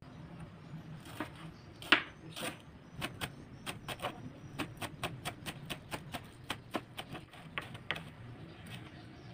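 Kitchen knife chopping spring onions on a plastic cutting board: a run of sharp taps, about three or four a second, the loudest about two seconds in.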